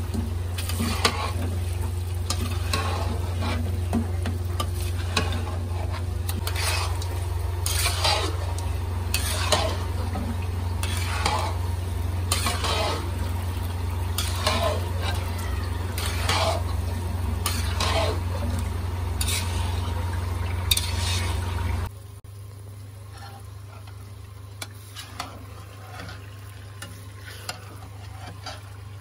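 Metal spatula scraping and stirring thick halwa frying in an iron kadai, about one stroke a second, over a steady low hum. About two-thirds of the way through the hum and stirring drop away, leaving only faint, occasional scrapes.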